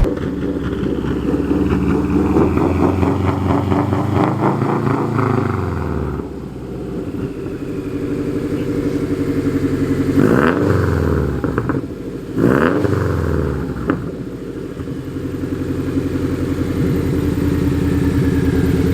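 Subaru WRX flat-four engine running through a freshly fitted Tomei titanium exhaust. It is revved twice about halfway through, each rev a quick rise and fall in pitch, and settles back to a steady run between and after.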